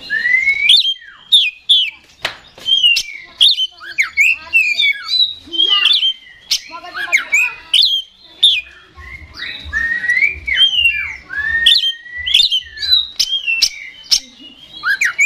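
Oriental magpie-robin singing a fast, varied song almost without pause: whistled notes that glide up and down, mixed with sharp clicks.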